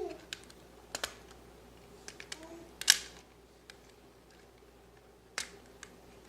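Plastic clicks and snaps of a PS4 controller's shell and triggers being worked apart by hand: a handful of sharp clicks, the loudest about three seconds in.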